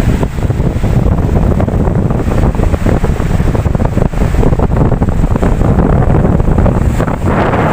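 Ocean waves washing in, under heavy wind buffeting the microphone with a low, fluttering rumble. Near the end a brighter, hissing wash of surf builds.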